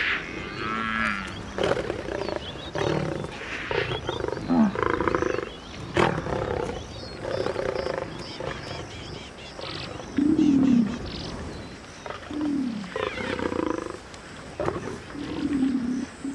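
Lioness snarling and growling again and again in short calls, several trailing off into a low falling growl: the defensive threat of a lioness cornered up a tree by Cape buffalo.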